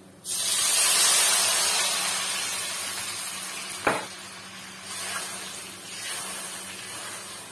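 Water poured into a hot wok of oil, cumin seeds and garlic, setting off a loud hiss and sizzle that starts suddenly and slowly dies away. A single short knock sounds about four seconds in.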